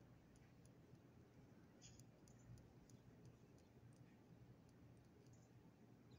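Near silence: faint outdoor background with a few faint, scattered clicks.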